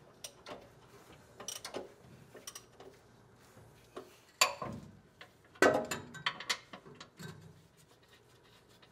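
Hand ratchet clicking in short irregular runs and metal clinks as the torque converter-to-flex plate nuts are backed off. The loudest clinks come about four and a half and about six seconds in.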